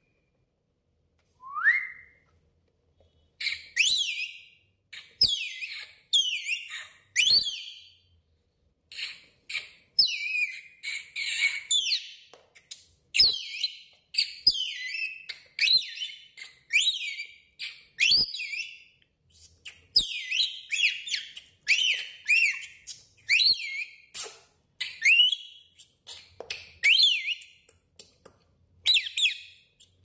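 Rainbow lorikeet whistling. One rising whistle comes about a second and a half in, then a long run of quick, high swooping whistles and chirps with short pauses between them.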